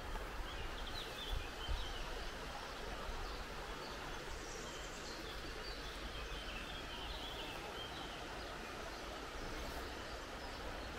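Birds chirping in short calls over a steady noisy background with a low rumble; the calls fade out in the second half.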